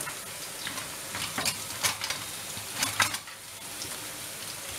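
Chopped onion and garlic sizzling in hot oil in a frying pan as they soften, with a few sharp crackles through the steady hiss.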